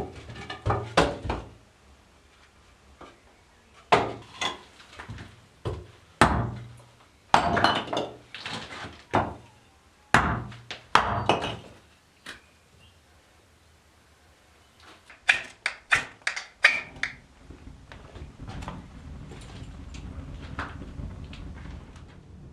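Split firewood logs knocking and thunking against each other and the stone floor as they are handled and set down, a long run of sharp wooden knocks. Near the end a wood fire in a clay fireplace burns with a steady low rush and scattered crackles.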